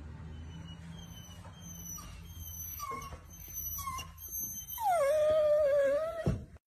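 Golden retriever puppy whining: a couple of short whimpers, then one long, high whine about five seconds in that dips in pitch and then holds steady.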